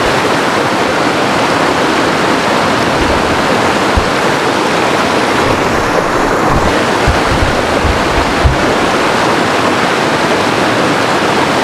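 Shallow rocky stream rushing and splashing over rocks in a steady loud wash, with a few short low thumps in the middle.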